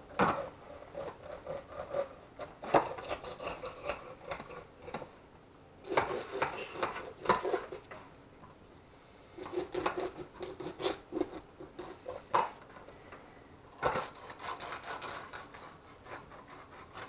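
Kitchen knife cutting pieces of trout, with rubbing, scraping and light clattering of the knife and a plastic container. The noises come in several bursts separated by short pauses.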